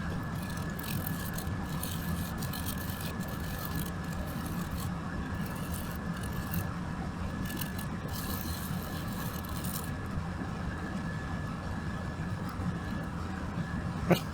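Scrubbing a circuit board with acetone to strip conformal coating: intermittent rasping strokes over a steady hum, with a single click near the end.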